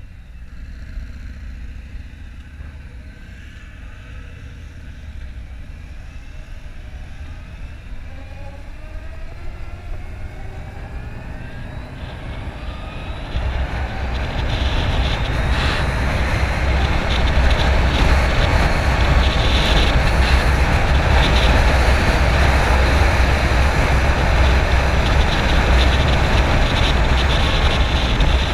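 Harley-Davidson LiveWire electric motorcycle pulling away: a faint whine from the electric drive rises steadily in pitch, then from about halfway a loud, steady rush of wind and road noise from riding at speed drowns it out.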